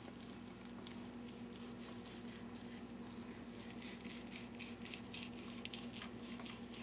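Kitchen knife sawing through a thick slab of cooked meat on a wooden cutting board: faint, irregular wet squelching and scraping strokes, over a steady low hum.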